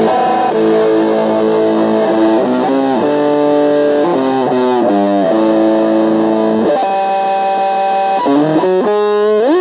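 Electric guitar played through distortion: held chords with notes sliding down between them, and a rising slide near the end.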